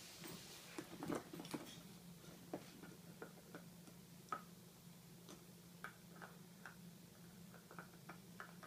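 Standard poodle puppy gnawing on a slice of elk antler: faint, irregular clicks of teeth on antler, with a cluster of slightly louder ones about a second in.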